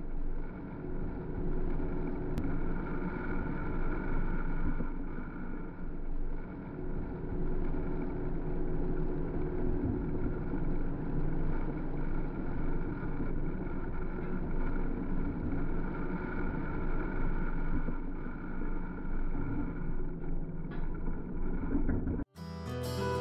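Steady motor noise: a continuous drone with faint, level humming tones and no distinct impact. It cuts off sharply near the end.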